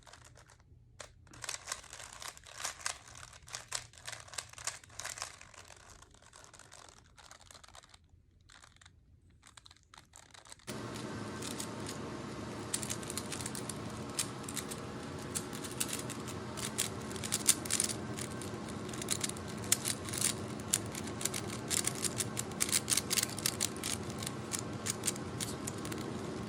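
Rubik's Cube being turned by hand, its plastic layers clicking and clacking in quick irregular runs. About ten seconds in, a steady background hiss comes in under the clicking.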